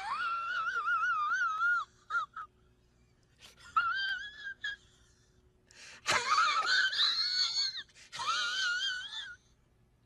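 Comic "strange thing" sound effect: a high-pitched, wobbling whine in four drawn-out phrases with short gaps between them, and two brief blips about two seconds in.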